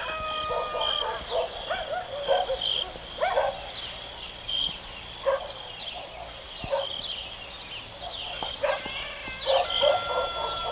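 Animal calls in short bursts every second or two, over a high chirp that repeats again and again.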